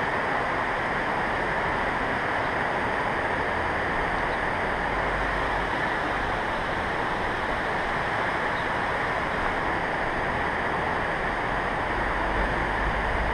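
Steady rushing noise with no distinct events, unchanging in level throughout.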